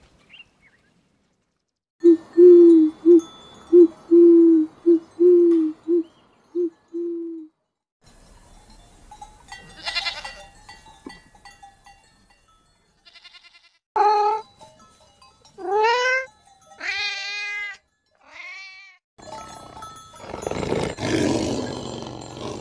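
A run of about nine short calls on one steady pitch, then a goat bleating four times with a wavering voice, then a lion beginning to roar near the end.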